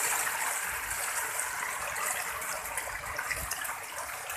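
Water churning and splashing as a densely stocked pond of catfish thrash at the surface in a feeding frenzy: a steady rush of water with many small scattered splashes.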